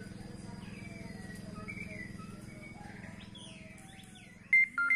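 White-rumped shama (murai batu) calling: a run of short chirps and whistled notes that slide up and down in pitch, over a steady low hum. About four and a half seconds in, loud ringing tones cut in.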